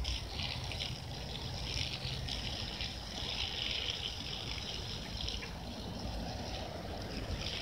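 Water spraying from a garden hose nozzle and splashing onto a grass lawn: a steady hiss, a little stronger a few seconds in.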